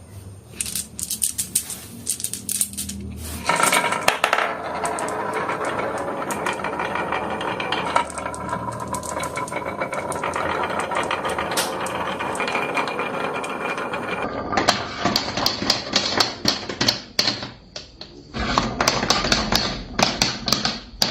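Marbles rolling and clattering down a wooden HABA marble run. Scattered clicks at first, then about ten seconds of steady rolling rumble full of clicks, then quicker bursts of clacking and rattling toward the end.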